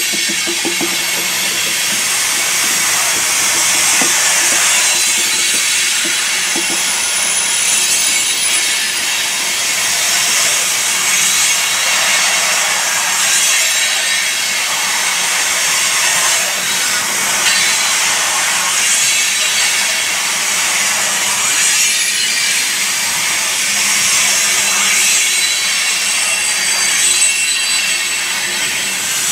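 Freight train rolling past, a steady loud rushing hiss of wheels on rail that swells and eases every few seconds.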